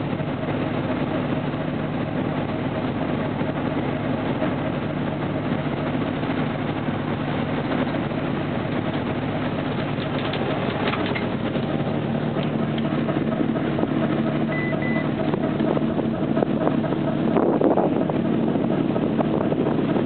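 An old motor vessel's engine running steadily under way, heard as an even drone. A short high beep sounds about three quarters of the way through.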